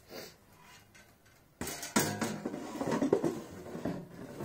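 The air fryer's drawer and basket being handled: a run of knocks and rattling clatter, with some ringing, starting about a second and a half in.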